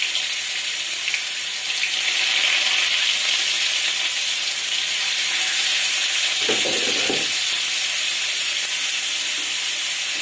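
Hot oil sizzling steadily in a kadhai as cumin seeds and a heap of chopped aromatics fry, with a brief duller rustle about six and a half seconds in.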